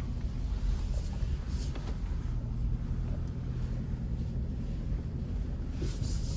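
Suzuki S-Cross Hybrid's 1.5-litre K15C petrol engine and tyres heard from inside the cabin while driving off-road: a steady low drone, with a few brief hissy rustles.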